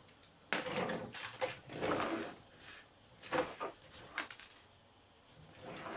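Handling noise from a 3D-printed plastic robot arm and gripper being moved by hand: a longer rubbing, sliding sound, then a couple of shorter scrapes and knocks.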